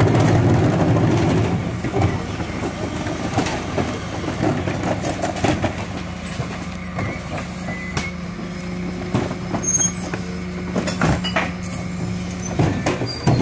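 Refuse truck (a DAF CF with a Heil Powerlink body) running at the kerb while its Terberg OmniDEL hydraulic bin lifter takes and tips a wheelie bin. The steady mechanical hum is louder for about the first second and a half, then settles, with a string of clanks and knocks as the bin is handled and lifted.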